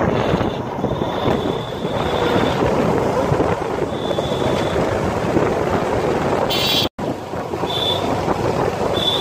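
Motorcycle engines running in a moving convoy, mixed with wind rushing over the microphone, with a few short high tones. The sound cuts out for an instant about seven seconds in.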